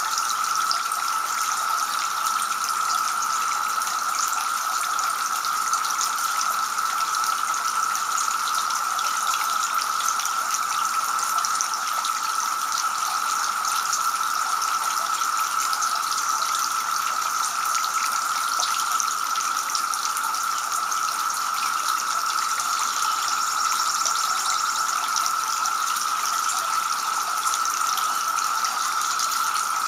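Tiered garden fountain running: water spilling from the top tier and splashing and trickling steadily into the basin.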